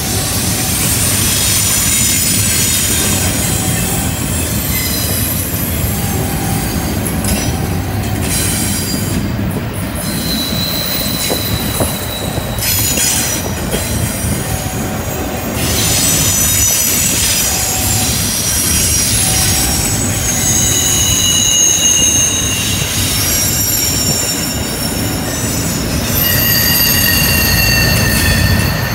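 Double-stack intermodal well cars rolling past on a curve over a steady rumble of wheels on rail. Wheel flanges squeal against the rail in high, thin tones that start and fade again and again, most often in the second half.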